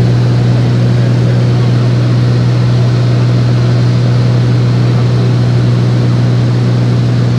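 Floatplane's piston engine and propeller droning steadily in cruise, heard from inside the cabin.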